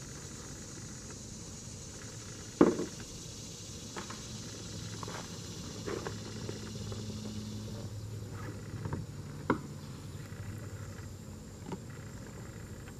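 Scattered knocks and taps of gear being handled in a kayak, the loudest a sharp knock about two and a half seconds in. A steady high insect buzz runs behind and fades after about eight seconds.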